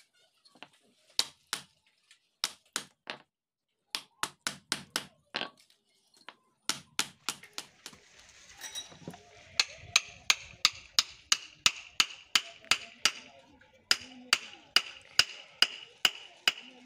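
Wooden knocks in short bunches, then a steel hammer tapping the end of a wooden handle about three times a second to drive it into a turned wooden mallet head, each blow with a short metallic ring.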